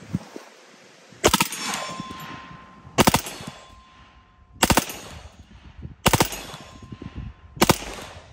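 Reising Model 50 .45 ACP submachine gun firing on full auto in five short bursts of a few shots each, about a second and a half apart, each burst trailing off in echo.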